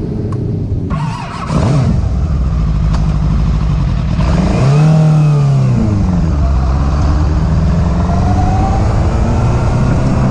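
Sportbike engine running, revved up and back down once about four to six seconds in, then held at a steady speed.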